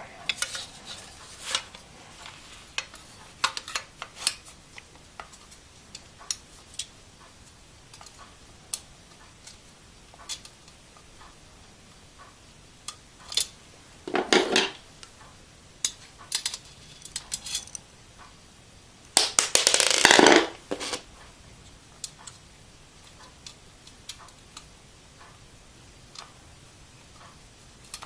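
Scattered light metallic clicks and clinks of small screws and a screwdriver handled against a steel computer case and hard-drive cage. There is a short clatter around 14 seconds in and a louder one lasting a second or so around 20 seconds in.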